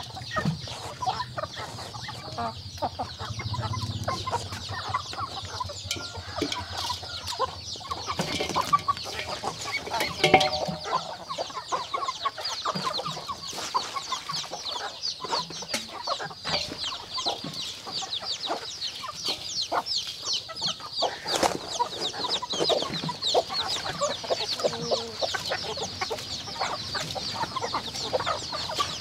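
Chickens clucking around a feeding basin, over a constant fast, high-pitched chirping, with many short clicks scattered through.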